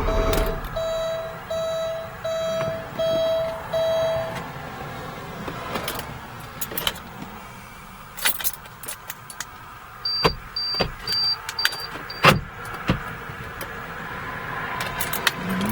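Electronic beeping from a 1989 Porsche 928 set off when the key is turned, a sign of its alarm fault. It is a steady tone pulsing about twice a second for the first four seconds. Then come scattered clicks and key rattles, a run of five short high beeps, and sharp clicks as the locks are worked.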